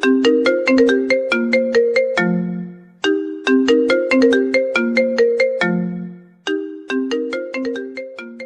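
Phone ringtone melody: a short tune of quick, ringing struck notes, one phrase repeating about every three seconds with a brief pause between repeats.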